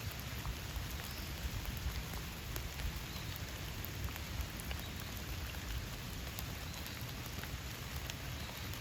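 Steady rain falling in a forest, a continuous even hiss with many separate drop ticks scattered through it.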